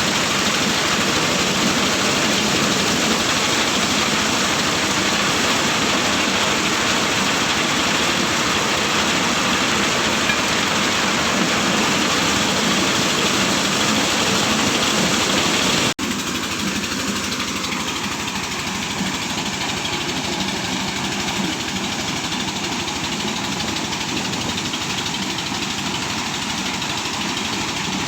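Engine-driven corn sheller running steadily, its engine and the threshing of cobs making a loud, even rush of noise. About sixteen seconds in the sound breaks off abruptly and goes on slightly quieter and duller.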